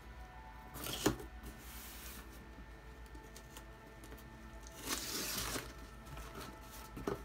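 Packing tape being pulled and torn off a cardboard shipping box as it is opened: a short rip about a second in, then a longer tearing rasp about five seconds in, with a click near the end as the flap comes free.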